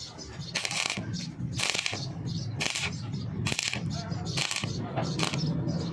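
Stick-welding arc on thin 0.7 mm steel tube, crackling and hissing in short bursts with brief breaks between them, as in stitch welding to keep from burning through thin metal.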